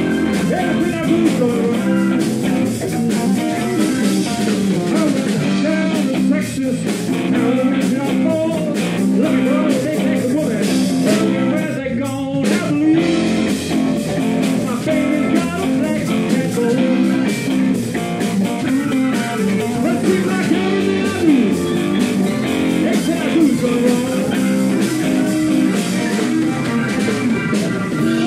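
Live blues band playing: electric guitar, bass guitar, drum kit and a Nord keyboard, with singing.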